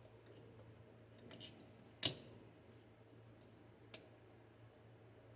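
A few light clicks from a hose clamp being worked by hand: a sharp one about two seconds in, the loudest, and another near four seconds. A low steady hum runs underneath.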